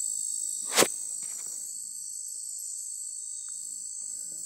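A steady, high-pitched chorus of night insects trilling, with one sharp knock a little under a second in.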